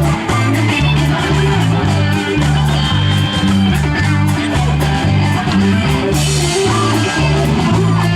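A band playing through a sound check: a bass line in short, repeated notes over a steady beat of ticks, loud and continuous.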